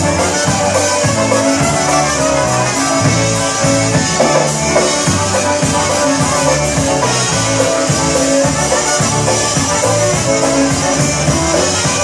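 A live band playing a song: two trumpets and accordions over guitar and drums, with a steady beat.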